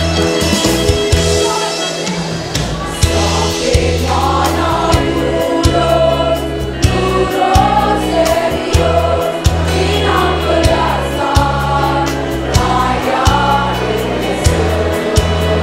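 Women's choir singing a march song, with instrumental accompaniment of a bass line and a steady beat.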